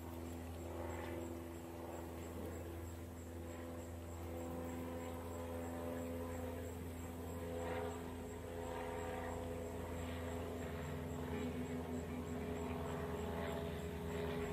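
Wild hog grunting in short calls, about seven spread over the stretch, over a steady low hum.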